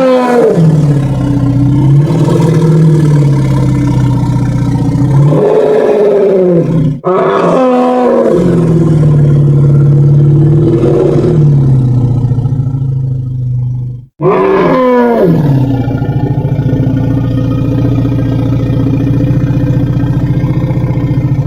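Cartoon Sinoceratops dinosaur sound effect: three long calls, each sliding down from a high cry into a deep, held rumbling tone. The second begins about seven seconds in and the third about fourteen seconds in.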